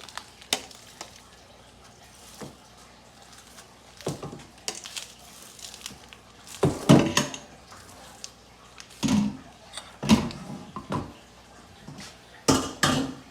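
Kitchen utensils knocking and clinking against dishes and pots in scattered, irregular strikes, the loudest about seven seconds in.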